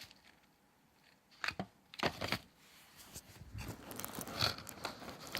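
Packaging being handled during an unboxing: a couple of sharp clicks and knocks about one and a half to two seconds in, then crinkling and rustling.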